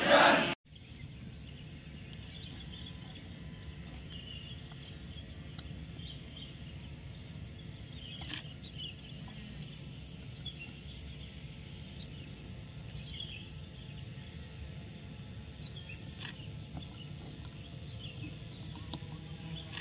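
Steady low outdoor background noise with scattered short bird chirps and two faint clicks, about eight seconds apart.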